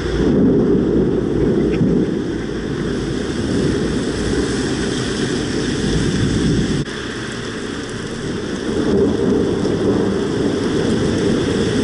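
Heavy thunderstorm downpour: a dense, steady rush of rain with low rumbling of thunder underneath. The sound drops a little, suddenly, about seven seconds in.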